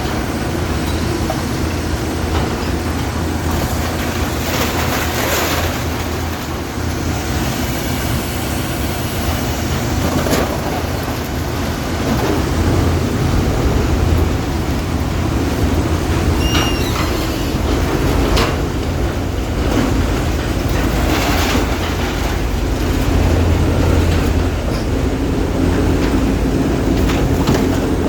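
Heavy diesel truck engine running steadily while a load of dirty scrap aluminum is dumped, the metal clattering and rattling as it slides out. There is a brief high squeal about halfway through.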